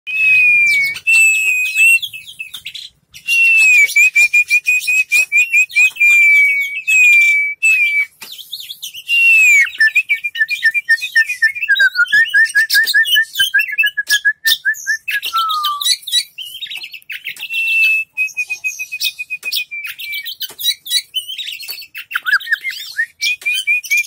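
Oriental magpie-robin (kacer) singing a long, varied song of clear whistles, quick repeated notes and trills, with one falling whistle about two-thirds of the way through.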